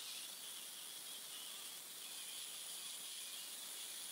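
Faint, steady insect chirring in two high, even bands over a soft hiss.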